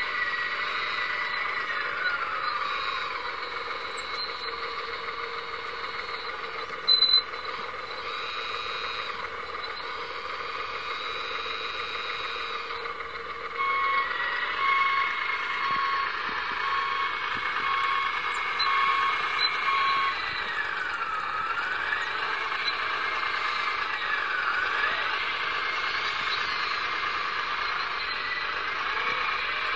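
Radio-controlled O&K L55 model wheel loader driving and working its bucket in snow: the high whine of its electric drive and gears rises and falls with its moves. A brief loud sharp sound comes about seven seconds in, and for several seconds from the middle a string of evenly spaced reversing beeps sounds, about one a second.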